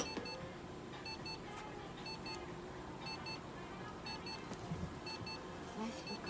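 Pairs of short, high electronic beeps repeating about once a second, the steady alert of a piece of veterinary clinic equipment.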